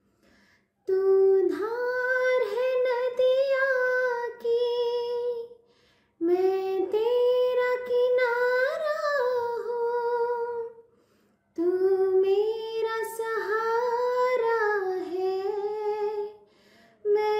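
A woman singing unaccompanied, in three long, held phrases with vibrato and short breaths between them.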